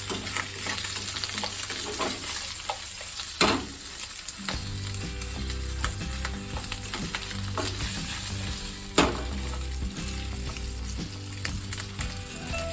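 Food sizzling as it is stir-fried in a hot pan, with a utensil knocking sharply against the pan twice, about three and a half seconds in and again near nine seconds.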